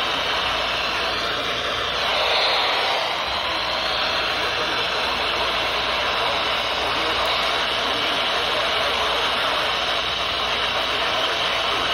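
Radio static: a steady hiss from a radio receiver tuned to a weak, distant station, with a brief shift in the hiss about two seconds in.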